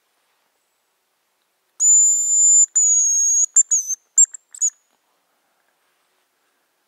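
High, thin hazel grouse whistle song: two long drawn notes, then a few short broken notes ending in a quick trill, close and loud.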